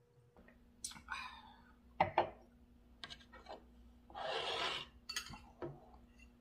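Tableware clatter: two sharp knocks about two seconds in, then lighter clinks of a metal spoon against a ceramic bowl, with a couple of breathy bursts, the longer one about four seconds in.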